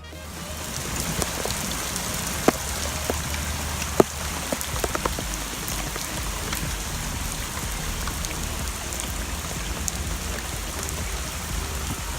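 Steady rain falling, with scattered louder drops striking a hard surface, the two strongest a couple of seconds apart early on.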